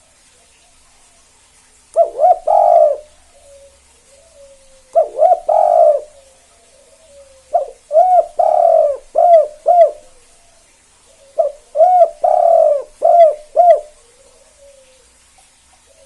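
Spotted dove (tekukur) of the 'kuk 2' song type cooing: four phrases, each a quick run of low coos, about three to four seconds apart, with faint soft coos between them.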